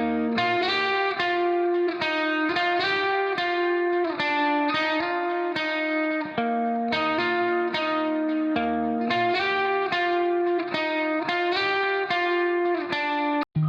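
Background music: a plucked guitar tune of quick, evenly paced notes, which cuts out for an instant near the end.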